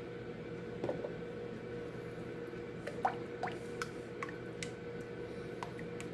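Half-and-half pouring from a carton into thick cheese soup in an enameled cast-iron French oven, then a wooden spoon stirring it in with wet squelches and small plops, coming quicker from about three seconds in. A steady low hum runs underneath.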